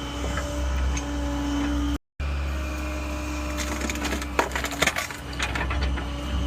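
Excavator engine running steadily with a steady whine over it, cut by a brief gap about two seconds in. From about halfway on, wood and brush crack and snap sharply as the machine clears around a buried fuel tank.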